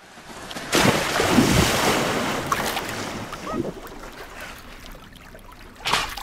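A loud rushing noise starts about a second in and slowly dies away, with a few short squeaky sounds over it. A brief burst of noise comes near the end.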